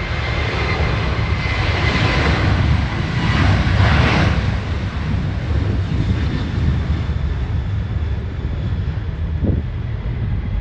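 Boeing 737 jet engines at takeoff power, a loud roar that peaks about four seconds in and then slowly fades.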